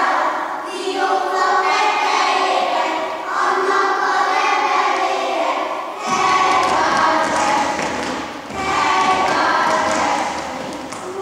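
A group of voices singing a song together in phrases. From about halfway, the thuds of dancing feet on the floor join in under the singing.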